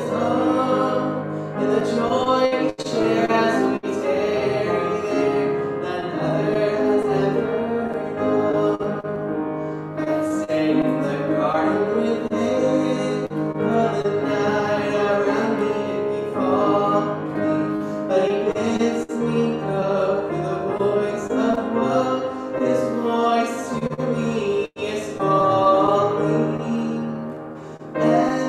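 Piano playing with a voice singing over it, a hymn with a wavering, vibrato-like melody. There are a few brief dropouts in the sound, about 3 seconds in and again near 25 seconds.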